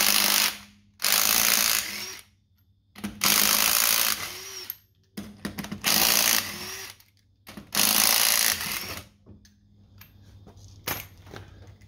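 Impact driver hammering wheel nuts loose on a car's front wheel, in five bursts of about a second each with short pauses between.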